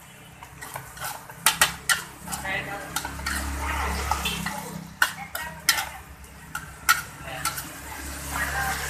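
Metal spatula scraping and clinking against a steel wok while fried rice with greens is stir-fried, with irregular sharp strikes of metal on metal over the scraping.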